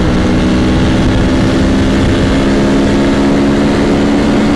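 Sport motorcycle engine running at a steady pitch while riding, over a heavy rush of wind and road noise.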